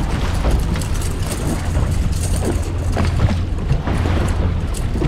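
Small boat's motor running steadily underway, with wind buffeting the microphone and water noise over it.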